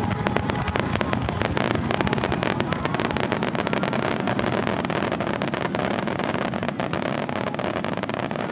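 Starmine fireworks barrage: many shells bursting in quick succession over a continuous dense crackle of crackling stars, with no break between reports.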